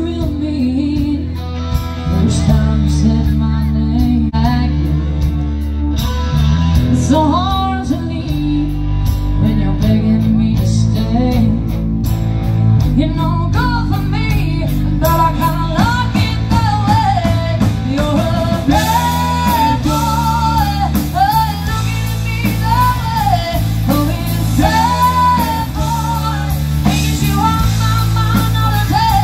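Rock band playing live, with guitar and bass, and a singer's voice carrying the melody through the second half.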